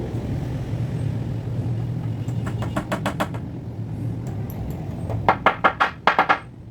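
Rapid run of sharp knocks, about seven in a second and a half near the end, over a steady low hum, with a few lighter clicks in the middle.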